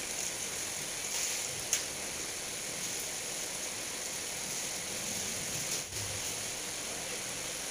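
Steady background hiss, with a faint click about two seconds in.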